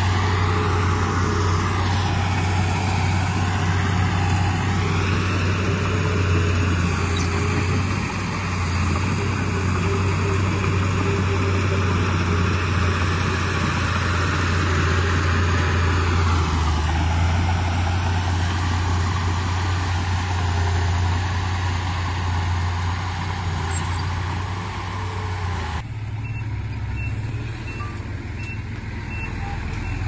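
Komatsu D31P crawler bulldozer's diesel engine working steadily under load, a strong low hum with heavy mechanical noise over it, its note shifting a few times. About four seconds before the end the sound drops and thins as it eases off.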